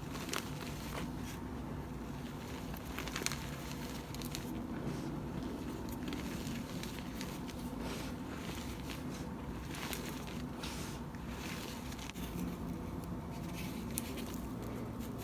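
Dyed powdery ASMR blocks being crushed and crumbled, with irregular crunches and crackles over a steady low hum.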